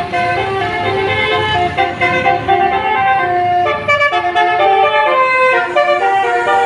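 Telolet multi-tone vehicle horn playing a continuous tune of quick stepped notes, several tones sounding together.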